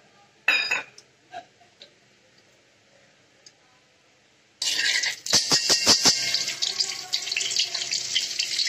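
A spoonful of butter dropped into hot oil in a steel kadai, sizzling: a sudden loud hiss about halfway through, with a burst of sharp crackles in its first second, after near silence.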